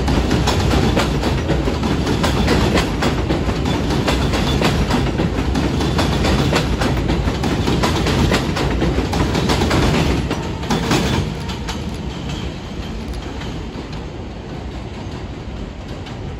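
R142A subway train pulling out along an elevated line, its wheels clattering over the rail joints. The noise drops off suddenly about eleven seconds in as the last car goes by, leaving a fainter rumble.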